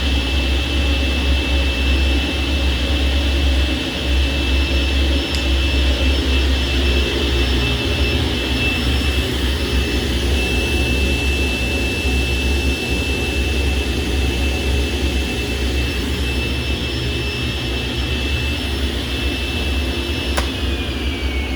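SawStop CNS175 contractor table saw running with no load: its 1.5 horsepower motor and spinning blade give a steady high whine over a low hum. About 20 seconds in there is a click and the whine starts falling in pitch as the saw coasts down after being switched off.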